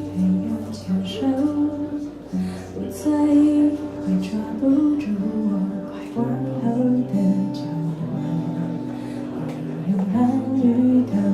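Guitar-led song music: plucked and strummed guitar over held low bass notes, with a stepping melody.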